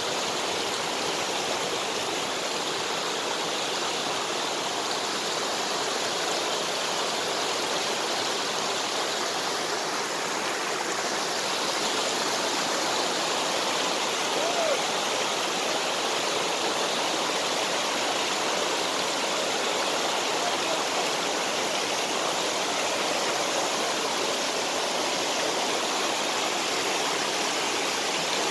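Steady rush of stream water running over rocks, an even, unbroken hiss at a constant level.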